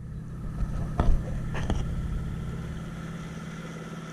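Outboard motor of an inflatable rubber boat running steadily under way, with two brief knocks a little over a second in.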